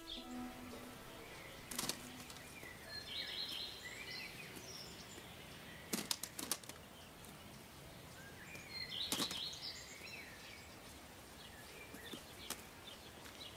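Potatoes being handled and dropped onto a heap: a few scattered knocks, with a quick cluster about six seconds in. Birds twitter twice in the background.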